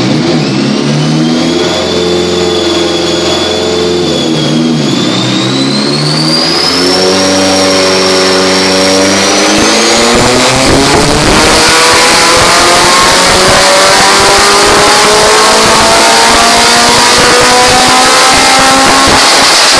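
Turbocharged Toyota SR race car engine on a chassis dynamometer, running steadily with one dip in revs about four seconds in, then from about ten seconds in climbing steadily in pitch through the rev range under load: a full-throttle dyno pull. A high whine rises alongside it.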